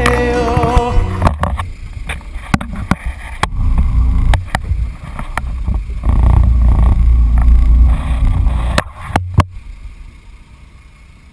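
Wind buffeting a camera microphone on a sport-fishing boat's deck: an uneven low rumble that swells and drops, loudest in the middle, with a few sharp knocks, and settles quieter near the end.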